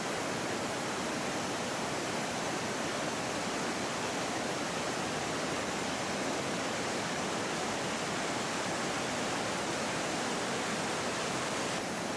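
Steady rush of a shallow stream flowing over rocks, an even hiss of running water with no breaks.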